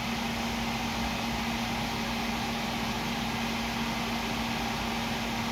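Steady hum and even hiss of a running fan, unchanging throughout.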